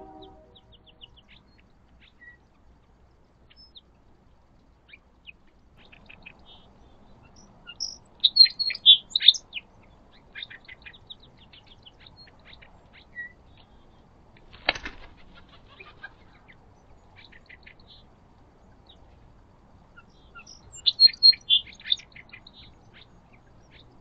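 Songbirds chirping at a backyard feeder: scattered short high chirps, with two loud bouts of rapid calls about eight and twenty-one seconds in. A single sharp thump or wing flutter comes about fifteen seconds in.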